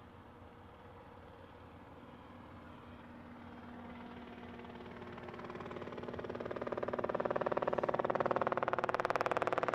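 An aircraft approaching the airfield, its engine sound growing steadily louder through the second half. Near the end it takes on a fast, regular pulsing.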